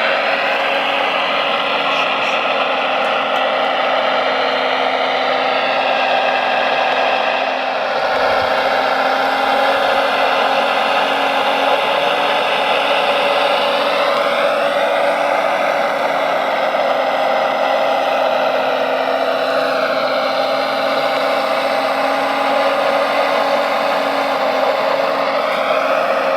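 Electric motors and gearboxes of radio-controlled construction models whining steadily, the whine sliding down and up in pitch several times as the throttle changes.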